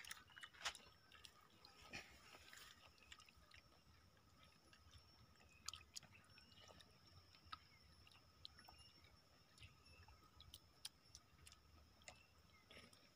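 Faint sounds of fermented rice soaked in water being mashed by hand in a clay pot and eaten by hand, with chewing and scattered small clicks.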